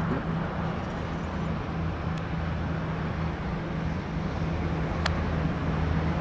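Steady low engine hum with outdoor traffic noise, and one sharp click about five seconds in.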